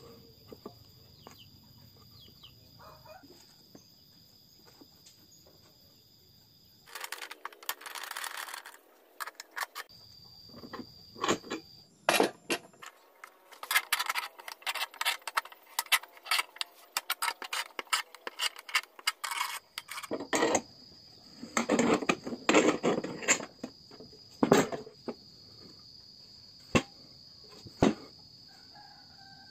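Wooden boards and a steel bar clamp being handled: irregular knocks, clacks and scraping in several bursts, over a steady high insect drone.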